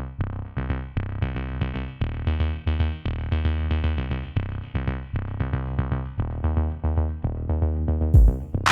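Electronic music clip: a quick run of short synthesizer notes over a low bass with a drum-machine beat. A loud noisy hit breaks in near the end.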